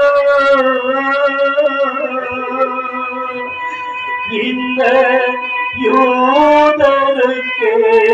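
Music with a singer holding long, wavering notes that slide between pitches over instrumental accompaniment, in a few drawn-out phrases.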